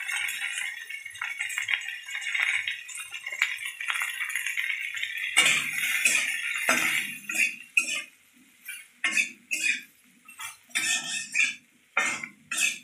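Metal spatula scraping and knocking against a metal kadai as okra coated in gram flour is stirred and tossed. For the first five seconds or so a steady hiss runs under it; after that the strokes come separately, about two a second.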